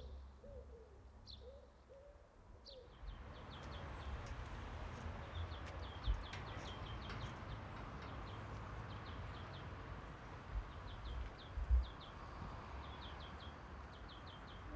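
A dove cooing in a short run of repeated arched notes for the first couple of seconds, then small birds chirping in quick clusters of high, short notes over a steady background hush. A few low thumps come in the second half.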